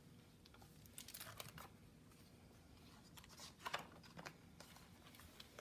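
Faint rustling and soft taps of a hardcover picture book being opened and its pages turned by hand; one page flip a little past the middle is the loudest.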